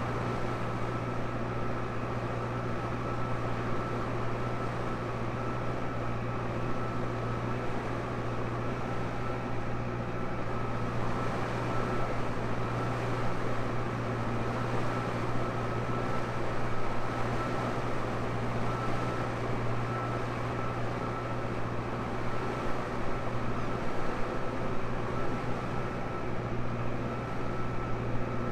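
Tractor engine running steadily under load, a constant low drone with a thin steady whine over it.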